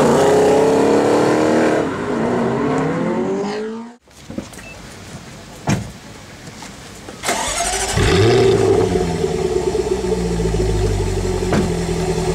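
Spyker C8 Aileron's Audi 4.2 V8 accelerating hard away, its revs dropping once and climbing again before the sound fades out about four seconds in. After a quieter lull with a few clicks, another car engine starts up about eight seconds in and runs on steadily with a deep rumble.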